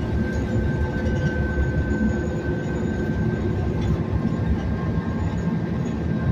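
Cabin ride noise of a New Flyer XN60 articulated bus with a Cummins Westport ISL G natural-gas engine, cruising along: a steady low rumble of engine and road with a thin, steady high whine over it.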